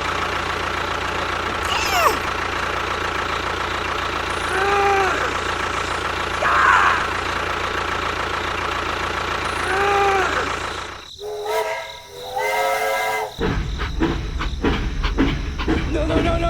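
A steady mechanical running noise with a low hum, like a small vehicle motor, with short arched tones twice. About eleven seconds in it gives way to a held chord of tones, then a rougher noise.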